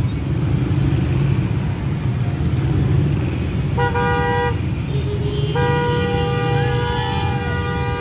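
Road traffic running steadily, with a vehicle horn honking. There is a short honk about four seconds in and a long, held honk from about halfway to the end.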